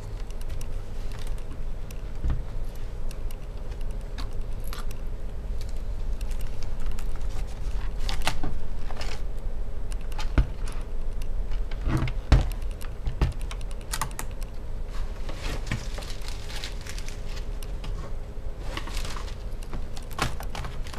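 Plastic clicks and rattles of a laptop keyboard being pried up and worked loose from its retaining tabs, with keys clattering as it is handled. Two louder knocks come about halfway through.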